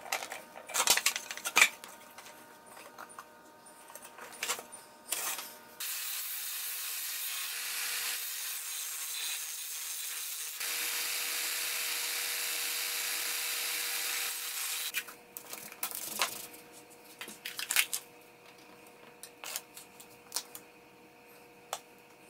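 A walnut box being handled on a bench gives a few sharp knocks and taps. From about six seconds in, its finger-jointed corner is sanded on the disc of a combination belt and disc sander for about nine seconds: a steady hiss of abrasive on wood. More light knocks and ticks follow.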